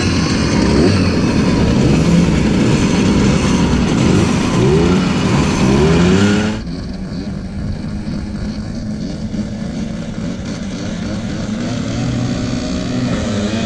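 Several small two-stroke motorcycle engines idling and revving close by, their pitch rising and falling repeatedly. About six and a half seconds in the sound cuts abruptly to a quieter, steadier drone of bikes running at a distance.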